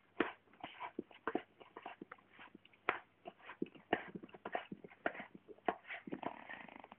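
A golden retriever licking chicken soup from a carton: quick, irregular licks, several a second.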